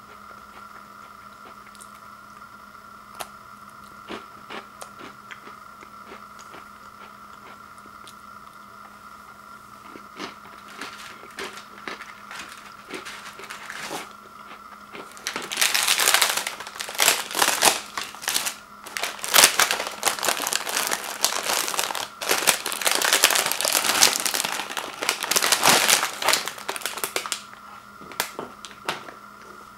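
Plastic cookie package and its plastic tray crinkling loudly as they are handled, for about twelve seconds from midway through; before that only faint scattered clicks.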